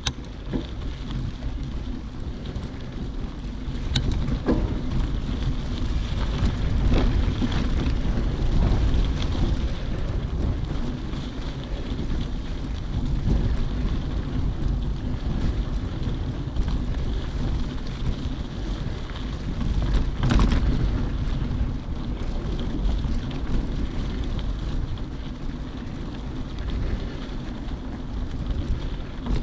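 Wind buffeting the microphone during a bike ride on a dirt trail: a steady low rumble with a few sharp knocks, at about 4, 7 and 20 seconds in.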